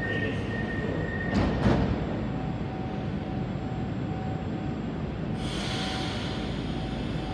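Moscow metro 'Moskva' train at the platform: its doors shut with a loud clunk about a second and a half in. A faint on-off tone follows, and a hiss begins about five seconds in as the train readies to leave.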